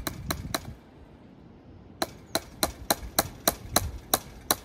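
Hammer blows in quick, even succession, as when fencing: a short run of about four strikes, then after a pause of a second or so about nine more at roughly three a second, each with a bright ring.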